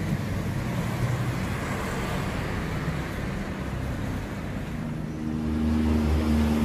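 Road traffic noise, with a vehicle engine's steady low hum growing louder about five seconds in.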